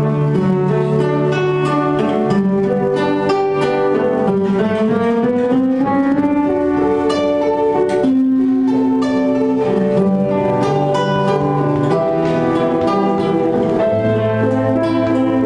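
Instrumental string music: several held notes sounding together, with a slow upward slide in pitch partway through.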